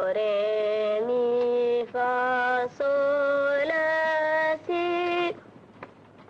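A boy singing a run of solfège syllables, six separate held notes of steady pitch, each just under a second, stopping about five seconds in.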